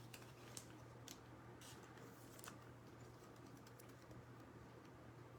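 Faint, scattered light clicks and taps of trading cards and packaging being handled on a table, over a low steady hum.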